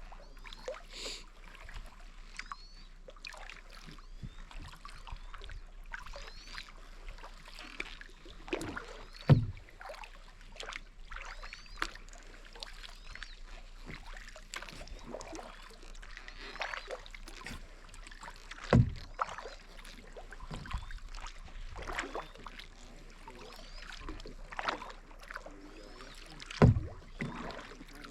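Kayak paddling: a run of paddle strokes dipping and splashing in the water. Three louder, deeper thumps stand out, about nine, nineteen and twenty-seven seconds in.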